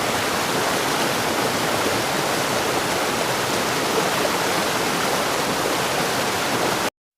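Rushing water, a steady dense rush that cuts off suddenly near the end.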